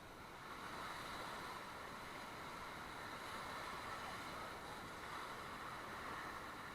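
Steady rush of river water, swelling slightly about half a second in.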